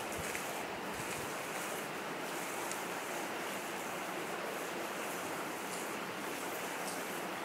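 Steady, even rushing hiss echoing inside an old railway tunnel, the tunnel's constant 'white noise', with a few faint ticks over it.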